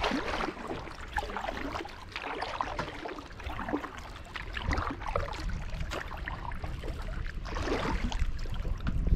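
Kayak paddling on a lake: paddle blades dipping and water trickling and gurgling off them against the hull, with a few stronger strokes about halfway through and near the end. A low rumble of wind on the microphone runs underneath.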